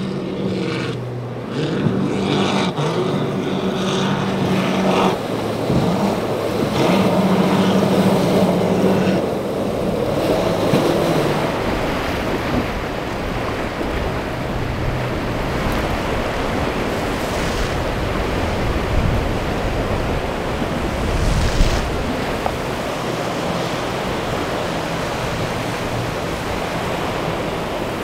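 Apache offshore powerboat's engines running at speed, fading out after about ten seconds into steady surf and wind noise.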